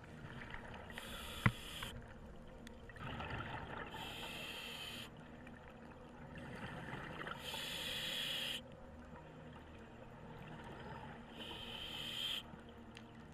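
Scuba regulator breathing heard from the diver's own camera, with the exhaled bubbles rushing out in four bursts of about a second each, a few seconds apart. A single sharp click comes about a second and a half in.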